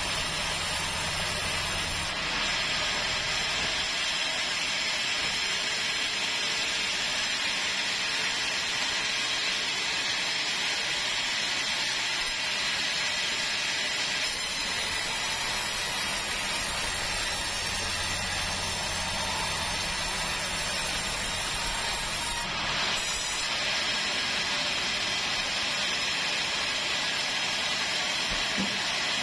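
Large band sawmill ripping a keruing timber beam: a steady hissing cut of the blade through the wood over the hum of the mill's motor.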